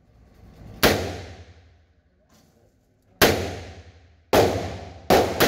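Smith & Wesson Model 19 revolver firing .38 Special rounds: five shots, spaced unevenly, the last two fired in quick succession near the end. Each shot echoes briefly in the enclosed indoor range.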